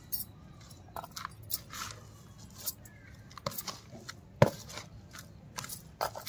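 Wooden spatula stirring and scraping a dry mix of soil, compost and cocopeat in a plastic basin: irregular scratchy strokes, with one sharp knock a little over four seconds in.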